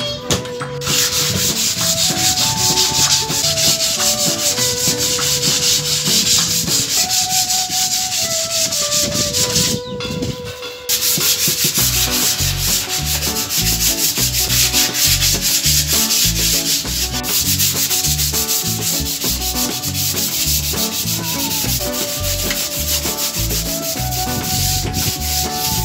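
Sandpaper rubbed by hand over the wooden side of a computer cabinet in fast back-and-forth strokes, with a short pause about ten seconds in. It is sanding down the surface to prepare it for varnish.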